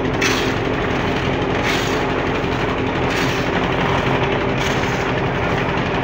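Steel shovel digging into a pile of crushed-stone gravel, a scraping, rattling scoop about every one and a half seconds, four times, over a steady machine hum.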